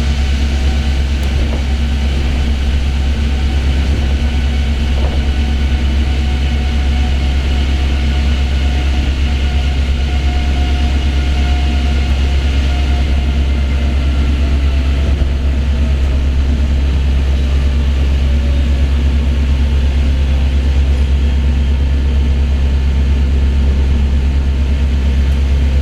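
Osaka Monorail train running between stations, heard from inside the car: a steady low rumble from its rubber tyres on the concrete track beam, with a faint motor whine that falls gently in pitch.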